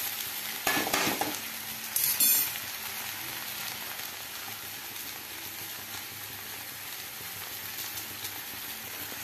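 Fresh fenugreek leaves frying in oil in a pan with a steady sizzle. A spatula stirs and scrapes through them twice in the first few seconds.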